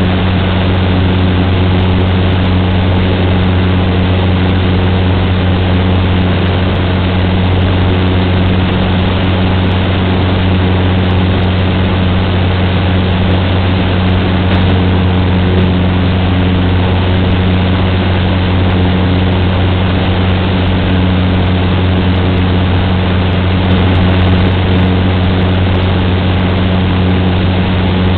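Cessna 150's four-cylinder Continental O-200 engine and propeller running at a steady, unchanging drone with a strong low hum.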